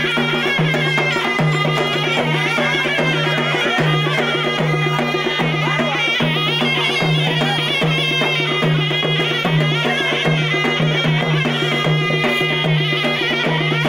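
Loud traditional folk dance music: a high, wavering melody over a steady, regularly pulsing low beat.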